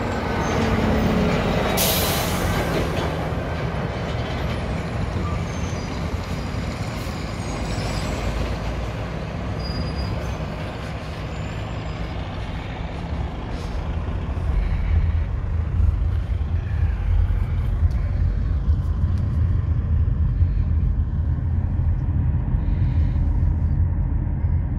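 Heavy trucks running, with a loud air-brake hiss about two seconds in that lasts about a second. From about halfway through, a steadier low rumble of a car driving, heard from inside the cabin, takes over.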